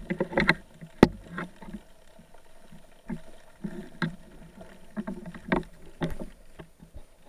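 Muffled underwater sound picked up through a camera's waterproof housing: irregular low rumbling of moving water, with a few sharp knocks, the loudest about a second in.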